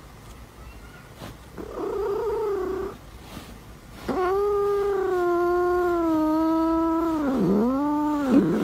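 A white cat yowling through clenched teeth as it holds an elastic band in its mouth against a tugging finger. A short yowl comes about one and a half seconds in, then a long drawn-out one from about four seconds that dips in pitch twice near the end. It is an angry, possessive yowl guarding the band.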